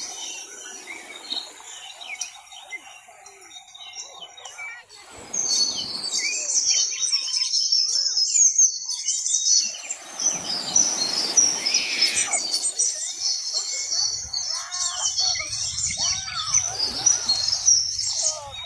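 Many small birds chirping and chattering together in a dense, continuous chorus that thickens about five seconds in, with a few brief rushes of noise underneath.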